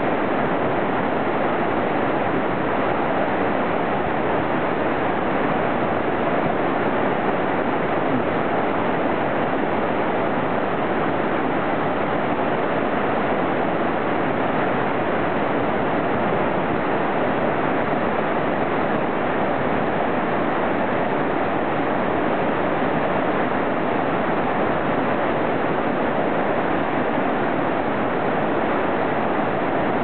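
Whitewater of a fast mountain river rushing over boulders in rapids, a steady, unbroken rush.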